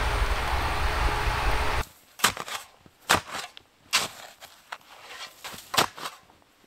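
A vehicle's steady running rumble for about the first two seconds, then a snow shovel digging into hard, ice-crusted snow: sharp crunching strokes about once a second, with smaller scrapes between them.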